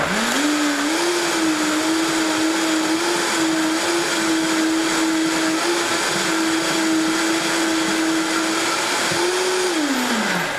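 Vitamix blender motor running on high while blending hummus: it climbs quickly in pitch in the first second, holds a steady pitch, then is switched off near the end and winds down.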